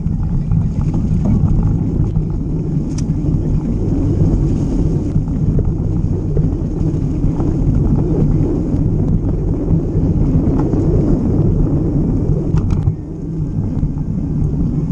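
A mountain bike being ridden along a dirt trail: a steady low rumble of tyres over the ground and wind on the microphone, with a few faint clicks and rattles from the bike.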